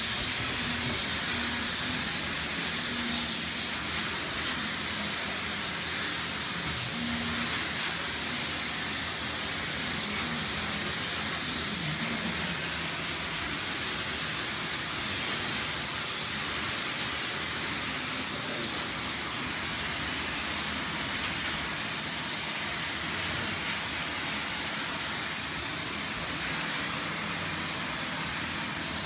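Spray gun spraying top coat onto oak kitchen cabinets: a steady hiss of air and finish that starts suddenly and holds at one level.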